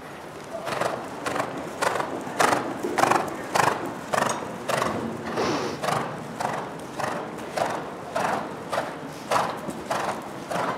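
Ridden horse cantering on the soft sand footing of an indoor arena, its hoofbeats falling steadily about twice a second from about half a second in.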